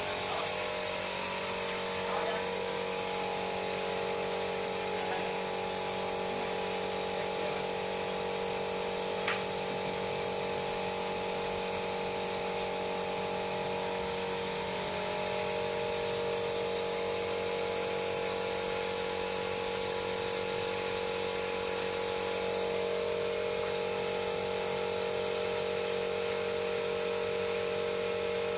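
Small handheld rotary tool whirring steadily as it grinds a resin figure, its pitch shifting slightly about halfway through as the load changes.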